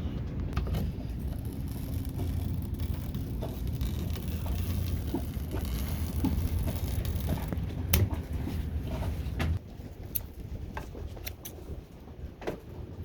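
Scattered clicks and snips of excess bug-screen mesh being trimmed off a hatch frame, over a steady low machine hum that cuts off suddenly about two-thirds of the way through.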